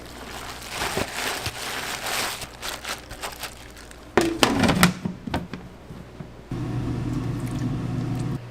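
Rustling and clattering of food preparation, with a short falling squeak and loud clicks about halfway through, then a steady low machine hum that starts suddenly about two-thirds of the way in.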